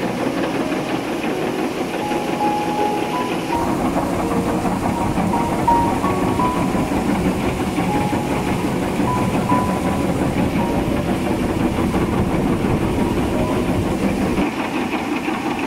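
Multi-deck gold-ore shaking table running, a loud, steady, fast mechanical clatter from its reciprocating drive and shaking decks.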